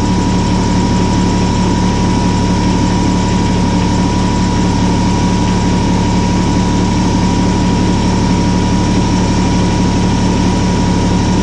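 Kubota BX25 tractor's three-cylinder diesel engine running steadily at slightly raised throttle, with a steady whine above the engine hum, while the backhoe stabilizers are raised hydraulically.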